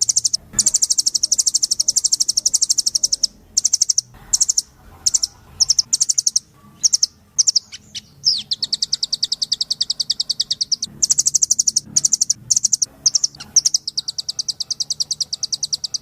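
Velvet-fronted nuthatch calling: long, rapid trills of sharp, high chip notes. Around the middle the trills break into shorter, choppier bursts before running on again.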